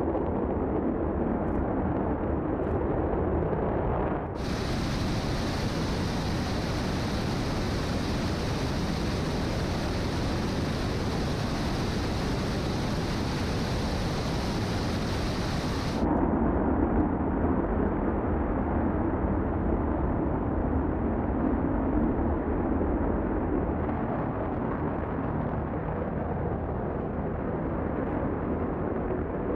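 GEM 63XL solid rocket motor firing on a static test stand: a steady, loud, dense rushing noise with a deep rumble underneath. From about four seconds in to about sixteen seconds in it sounds brighter and hissier, then duller again.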